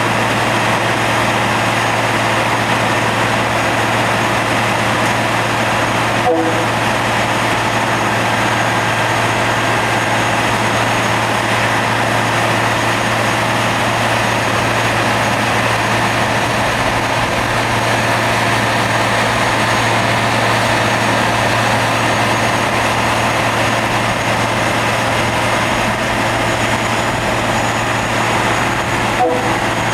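Rail grinding train at work, its grinding wheels on the railhead giving a loud, steady rushing noise over a constant low engine hum. The sound cuts out for a moment about six seconds in and again near the end.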